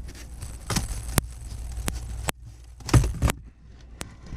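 Hand tools and car parts being handled while undoing the 10 mm bolts of a blower motor: scattered sharp clicks and knocks, with a louder clatter about three seconds in, over a low rumble.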